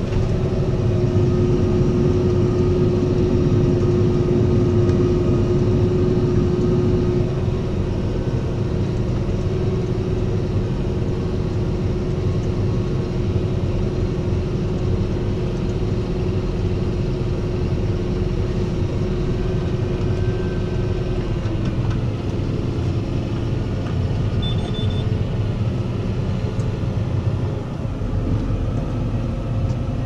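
Fendt 720 Vario tractor's six-cylinder diesel engine running steadily under ploughing load, heard inside the cab, with a steady whine that dips slightly in pitch twice. A short high beep sounds near the end.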